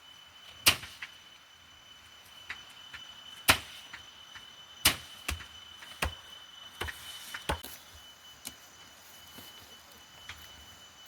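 Sharp, irregularly spaced cracks and snaps from soybean plants being worked by hand in the harvest, about seven or eight in all, the loudest in the first five seconds. A faint steady high-pitched tone runs underneath.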